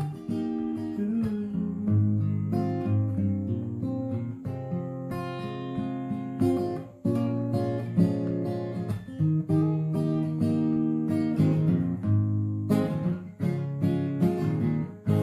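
Acoustic guitar played solo, chords strummed and left to ring, with a few short pauses between phrases: the instrumental ending of a song after the last sung line.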